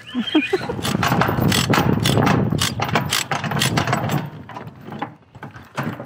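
Steel tie-down chain clinking and a chain binder clicking as the chain is tensioned on a trailer deck: a rapid, dense run of clicks for the first few seconds, then fainter.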